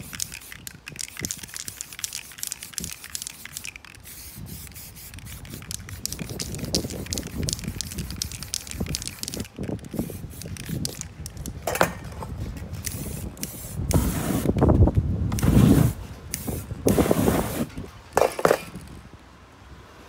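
Aerosol spray paint can hissing in many short bursts as black paint is sprayed over a paper stencil. The loudest, longest bursts come in the last third.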